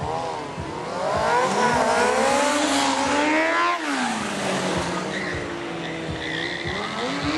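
Sport motorcycle engines revving up and down repeatedly during stunt riding, then held at a fairly steady pitch in the second half while a rider balances the bike on one wheel.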